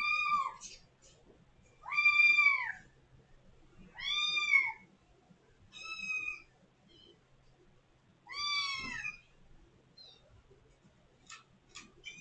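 A kitten meowing loudly and insistently, five high-pitched mews about two seconds apart, each rising and then falling in pitch: calling at a closed door to be let out.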